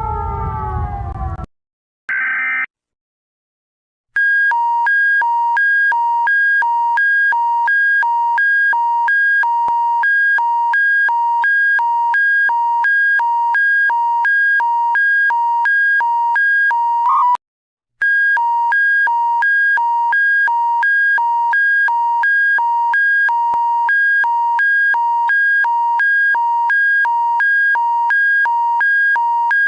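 Emergency alert alarm audio played in reverse: a siren-like tone falls in pitch and cuts off in the first second and a half, followed by a short blip. Then, from about four seconds in, an electronic alarm tone alternates rapidly between a low and a high pitch, broken by a brief gap near the middle.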